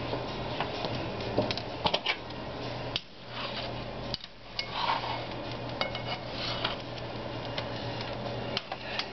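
Metal tongs clicking and tapping against a nonstick frying pan as a naan is turned in it: a scatter of light, irregular clinks over a steady low hum.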